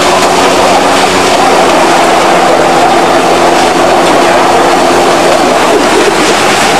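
Wheels of a small rail vehicle rolling on 600 mm narrow-gauge track: a loud, steady rumble and rattle of running along the rails. A steady hum underneath fades out about five seconds in.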